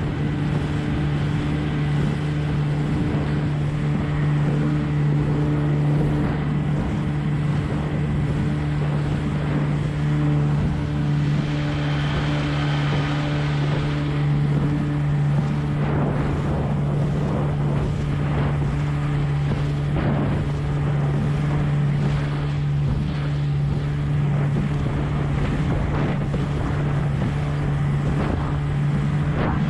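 20 hp Evinrude two-stroke outboard running steadily at constant throttle, driving a small hydroplane at speed. Wind on the microphone and water hissing and slapping against the hull mix with the engine.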